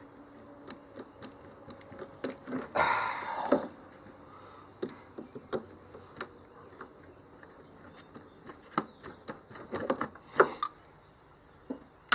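Irregular sharp clicks and light metallic taps of hand tools working loose a truck's battery terminals and hold-down bracket, with a louder scrape about three seconds in and a quick run of clicks near the end.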